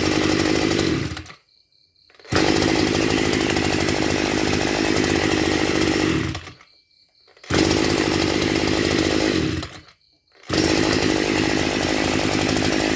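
Maruyama MB265 brush cutter's 26 cc two-stroke engine idling, cutting out three times and firing again within about a second each time on a light pull of its automatic-decompression recoil starter: a warm engine that starts readily.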